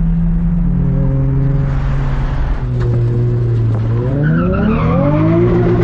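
Turbocharged 2JZ-GTE straight-six in a Nissan 200SX S14a, running loud: it holds a steady note that drops in pitch twice, with a few crackles about three seconds in. Then it revs up sharply about four seconds in and settles on a higher note near the end.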